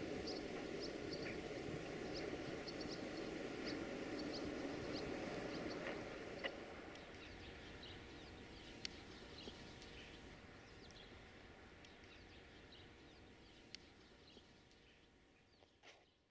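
Freight train of tank wagons rolling along the rails, a steady low rumble that slowly fades away. Small birds chirp repeatedly over it, and a few sharp clicks stand out.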